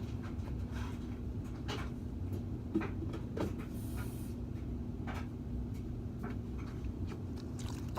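Quiet room tone with a steady low hum, broken by a few faint scattered clicks and knocks.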